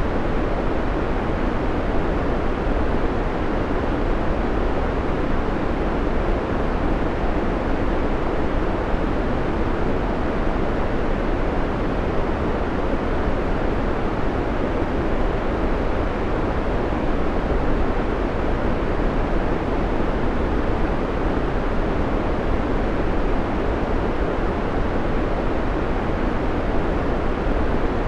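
Steady white noise hiss, constant in level, with most of its weight in the low and middle range.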